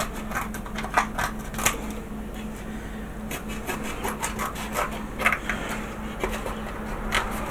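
Modelling clay being cut away and handled by hand: irregular scratching and rubbing with scattered light clicks and taps.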